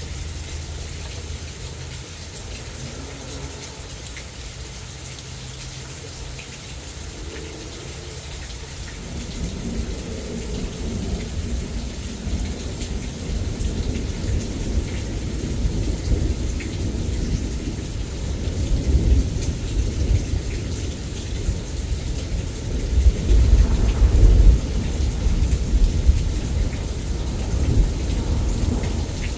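Steady heavy rain with a long roll of thunder that builds from about nine seconds in and peaks near the end.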